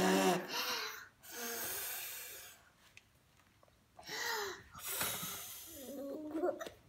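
Young children's breathy laughing and huffing. A voiced laugh comes at the start, then long breathy puffs about a second in and again near five seconds, with short voiced sounds between them.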